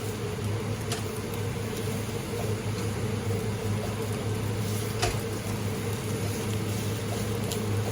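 Steady low hum of a kitchen appliance over a light hiss, with a few faint clicks of a utensil against the pan.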